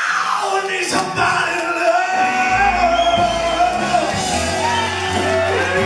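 Live rock band with a shouted, wailing lead vocal sung into a handheld microphone; a deep bass line comes in about two and a half seconds in under a held vocal line.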